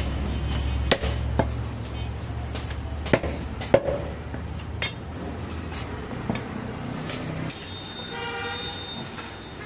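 A cleaver strikes goat meat down onto a wooden chopping block in several sharp chops over the first five seconds, over a low steady rumble. Near the end a pitched, horn-like tone sounds for about a second.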